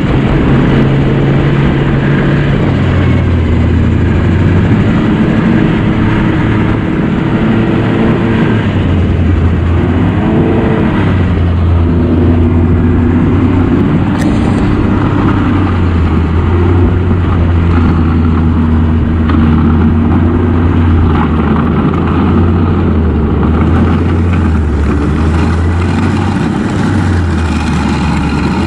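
Four-stroke engine of a 2009 Yamaha Vector snowmobile running under way, its pitch stepping up and down with the throttle and settling lower near the end as the sled slows.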